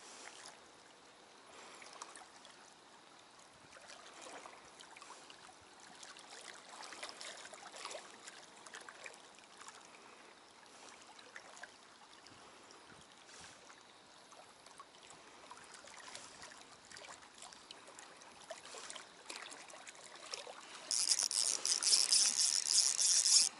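Faint lake water lapping and trickling among the stones at the shoreline's edge, with small irregular knocks and rustles. About three seconds before the end, a much louder high-pitched hiss comes in and holds.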